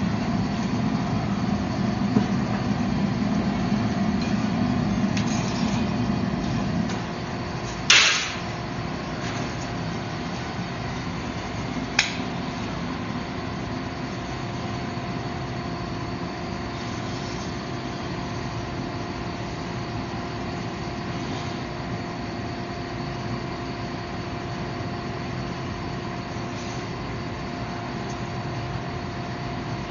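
Steady hum of forge-shop machinery. A louder low rumble stops about seven seconds in, then comes one sharp metallic clank with a short ring, and a lighter click about four seconds later.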